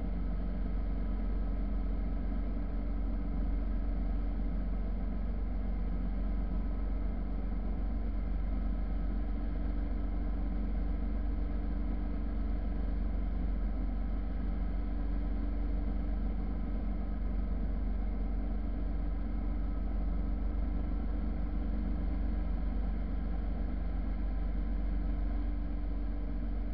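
Motorcycle running at a steady cruising speed, its engine note holding one pitch, under a heavy low rush of wind and road noise on the bike-mounted camera microphone.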